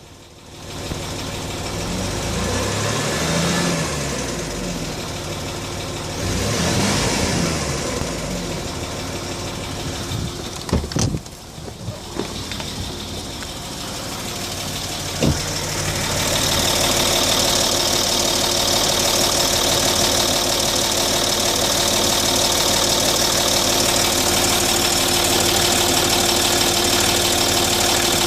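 Land Rover Discovery 3's 2.7 TDV6 twin-turbo V6 diesel running warm, revved up and let fall back twice, then settling into a louder steady run for the second half, with a couple of sharp clicks in between. The engine has a ticking noise that only appears at operating temperature and is loudest as the revs drop from about 1500 to 1000 rpm.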